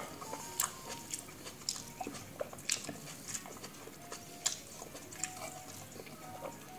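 Close-miked eating sounds: chewing and mouth smacks with short, irregular clicks and crackles, a few a second.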